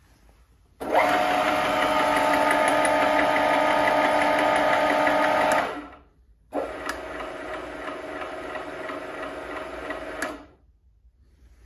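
Huvema HU 45 DM geared-head milling machine running with a steady geared whine. It is switched on about a second in and stops after about five seconds, then runs again more quietly for about four seconds before stopping.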